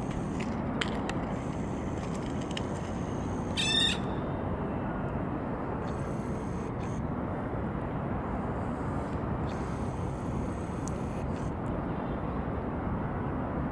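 Steady low rumble of distant city traffic heard from a rooftop, with one short, harsh bird call about three and a half seconds in.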